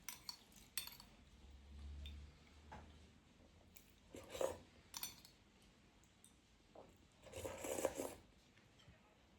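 Eating at a table: cutlery clicking against a dish several times, with two short louder sounds about four and a half seconds in and again near eight seconds.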